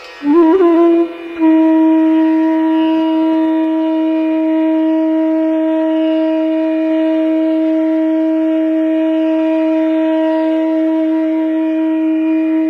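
Conch shell (shankh) blown: a short wavering first blast that breaks off about a second in, then one long steady note held on, over a faint steady drone.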